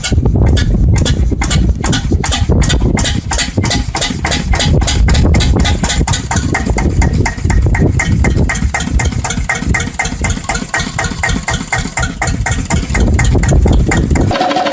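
Small 8 HP diesel engine starting up, its firing strokes speeding up over the first few seconds and then running steadily. Near the end it gives way abruptly to a different, higher-pitched engine sound.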